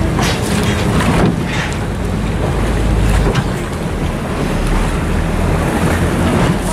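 Wind buffeting the microphone aboard a moving boat, over water rushing past and a steady low rumble.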